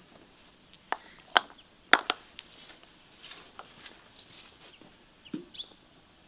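Glass jars with screw-on lids clinking against one another and knocking on a wooden tabletop as they are handled. A few sharp clinks come about one to two seconds in, then only fainter knocks.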